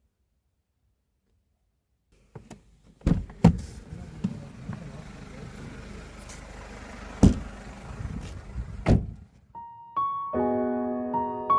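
Several dull thuds and knocks over a steady hiss, starting after a couple of seconds of quiet, the loudest coming in a quick pair and then two more spaced a few seconds apart. Soft electric piano music begins near the end.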